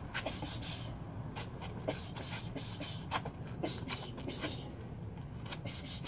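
Quick, sharp hissing exhales from a boxer throwing punches while shadowboxing, an irregular run of a couple per second, mixed with the scuff and tap of boxing boots on concrete, over a low steady rumble.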